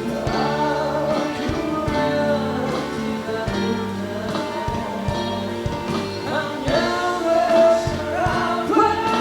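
Music: a male voice singing a Malay song over instrumental backing.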